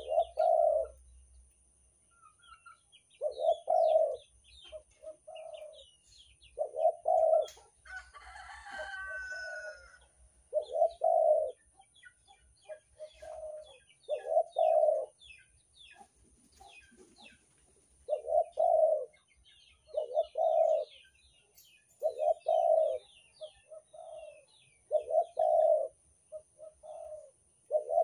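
Spotted dove cooing: low, rolling coo notes repeated in short phrases every second or two, some notes softer than others. Faint high chirps of small birds go on behind it, and a different, higher call of another bird comes in about eight seconds in.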